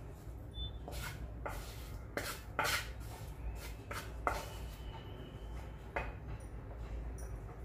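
Wooden spatula scraping and knocking against a dark non-stick frying pan as fried radish pickle is pushed out into a glass jar: a run of irregular scrapes and taps.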